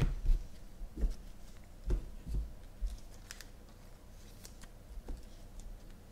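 Trading cards and foil card packs handled on a tabletop: a few soft knocks in the first three seconds, then faint light clicks.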